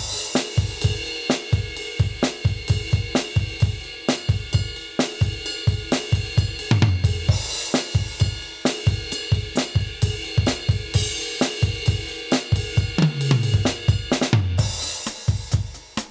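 Aroma TDX-25 electronic drum kit played through its sound module on the "K14 Cool Jazz" preset: a steady groove of kick, snare and ringing cymbal. Twice, about seven and thirteen seconds in, a tom fill steps down in pitch and lands on a cymbal crash.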